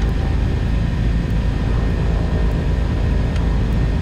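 Piper Aerostar 700's twin piston engines and propellers running steadily on the ground after landing, heard inside the cockpit as an even drone.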